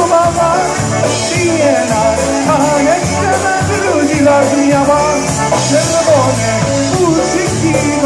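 Live band music over a PA system: a concertina and an accordion play the lead over electric guitar, bass and a steady beat, with a singing voice on the melody.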